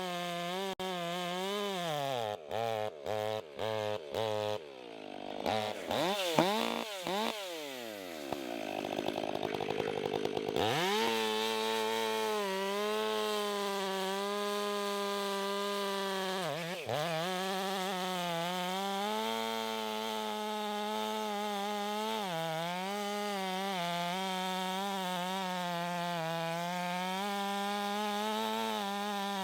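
Professional two-stroke Stihl chainsaw running at full revs while cutting through a log, the engine note sagging briefly as the chain bites. A few seconds in the sound breaks off abruptly several times, then the revs fall and climb again before settling into a long steady cut.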